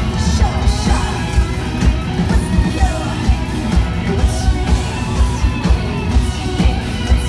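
A rock band playing live and loud, a woman singing and yelling into a microphone over a steady drum beat.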